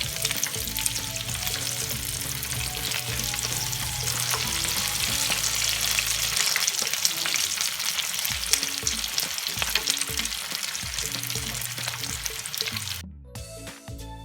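Pork intestines deep-frying in hot oil: dense, steady sizzling and crackling over background music. About a second before the end the frying cuts off suddenly, leaving only the music.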